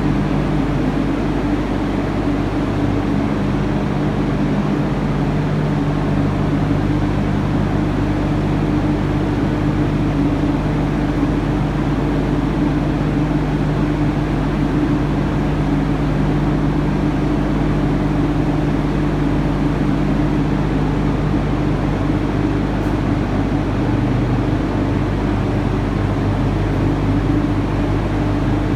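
Hydro generator's brake air compressor running steadily: an even mechanical drone with a constant low hum that does not change in pace or pitch.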